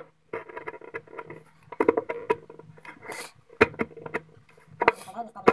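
Wide bench chisel paring thin shavings from the edge of a softwood block by hand: a series of short scraping strokes, with a few sharp clicks in the second half.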